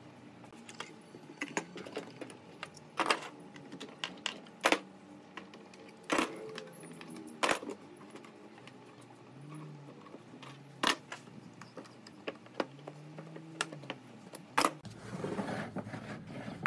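Steel C-clamps being taken off a glued, bent wooden rail and put down on a wooden workbench: about six sharp metallic clanks a second or more apart as the clamps knock against each other and the bench.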